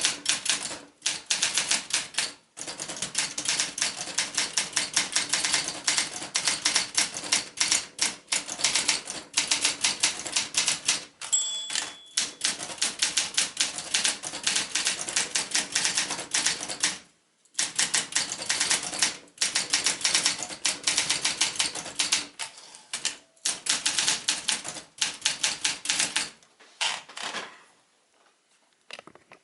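A 1967 Olympia SM9 portable manual typewriter being typed on: fast runs of keystrokes with short pauses between them. A brief high ring, the margin bell, comes about eleven seconds in, and the typing thins out and stops near the end.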